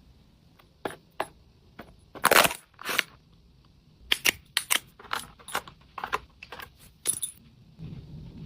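Handling sounds from an unboxing: a string of sharp clicks and short rustling scrapes of small hard items and packaging, loudest about two seconds in. A low hum comes in near the end.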